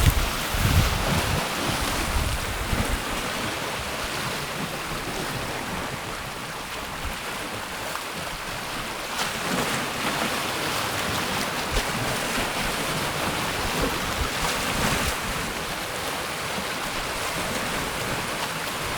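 Wind-driven waves washing on a lake, with wind buffeting the microphone; the gusts rumble hardest in the first few seconds.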